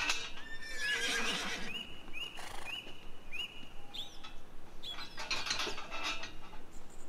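Steel-framed farm gate being swung open, its hinges squeaking in a run of about five short high squeals, each with a quick upward hook at the start. There is rattling of the metal around the start and again about five seconds in.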